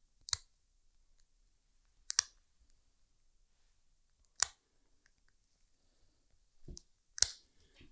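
Scissor-style dog nail clippers snipping through a dog's toenails: sharp single clicks about every two seconds, one of them a quick double snip.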